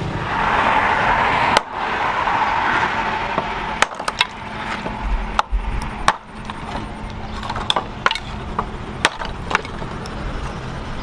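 Workshop hand-work sounds: a steady hiss that cuts off sharply about a second and a half in, then scattered, irregular sharp knocks and clicks.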